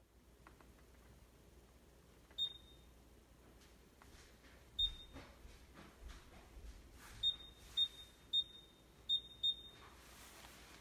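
Short high-pitched beeps from the touch-key clock control of a Fulgor Milano Sofia Professional range, one for each press of the − and + keys as the time is adjusted. Seven beeps, two well spaced, then five in quicker succession.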